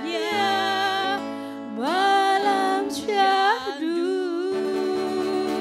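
Women singing an Indonesian pop ballad into microphones, drawing out the word 'nikmatnya' in long held notes with vibrato, over acoustic guitar accompaniment.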